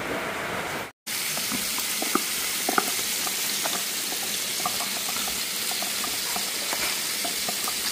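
A pot of beef tongue boiling in its stock, with a steady hiss and scattered small pops and clicks. The sound cuts out briefly about a second in.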